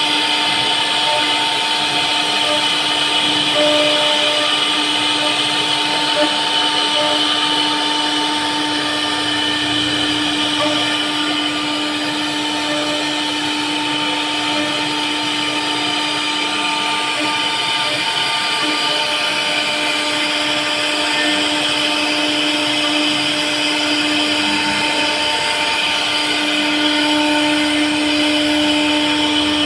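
CNC router spindle running at a steady whine while cutting wood, with a constant hiss of cutting and air beneath the tone.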